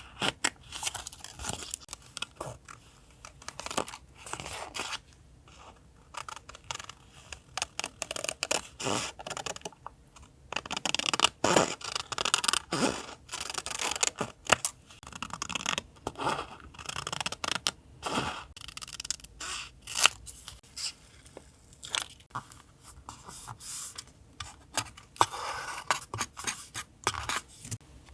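Paper crafting by hand: scissors snipping paper, with paper scraping and tearing in irregular short strokes.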